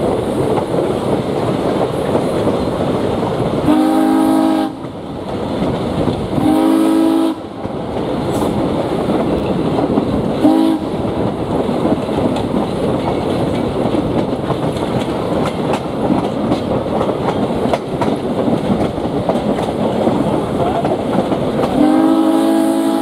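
Frisco 1630's steam whistle blowing two long blasts, a short one, and a long one that starts near the end: the grade-crossing signal. Underneath runs the steady clickety-clack of the train's wheels on the rail joints.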